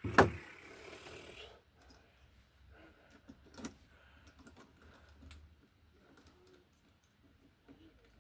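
A sharp knock, then scattered small clicks and rattles as wires and a plastic lever connector are handled and fitted together.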